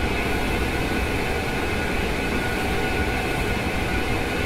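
Pneumatic air scribe running steadily at low air pressure as its tip works the hard rock matrix off an ammonoid fossil: an even hiss and buzz with no breaks.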